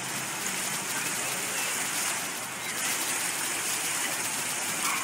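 Splash-pad fountain jets spraying up from the pavement and spattering back onto the wet ground, a steady hiss of falling water.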